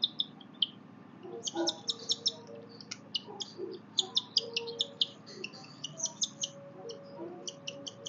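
Young cockatiel giving rapid, high-pitched raspy chirps in quick runs with short pauses while it is hand-fed from a spoon, the food-begging calls of a chick at feeding.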